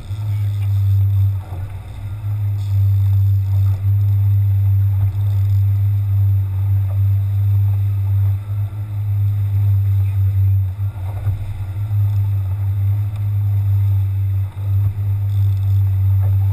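Small outboard motor running steadily, a low drone that dips briefly a few times, with water washing past the hull.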